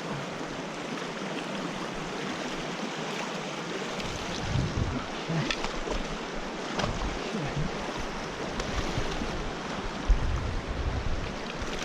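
River water rushing steadily. Low thuds and rumbles start about four seconds in.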